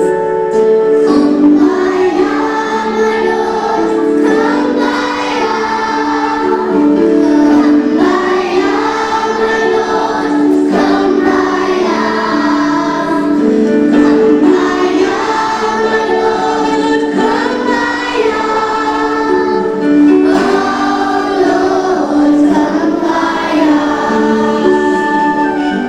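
A group of young children singing a song together over a steady instrumental accompaniment.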